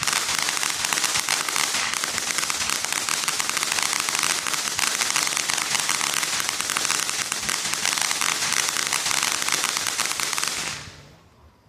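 Consumer ground fountain firework spraying, a steady dense hissing crackle that dies away about eleven seconds in as it burns out.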